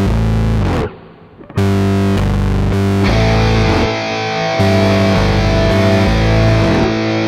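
Heavy rock soundtrack music driven by distorted electric guitar chords. It drops out briefly about a second in, then comes back and grows fuller from about three seconds in.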